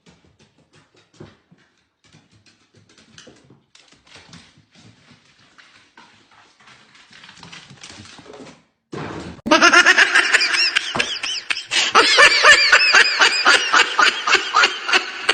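Faint scattered taps and scuffs for about nine seconds, then loud, high, continuous laughter that cuts in suddenly.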